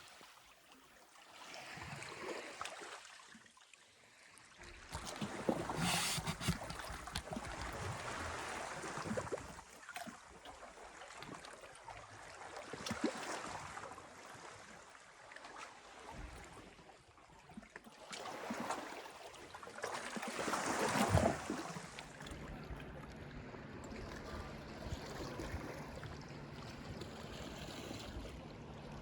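Sea water washing in slow swells, a surge every several seconds, the loudest about two-thirds of the way through. Near the end a steady low hum sets in under the water.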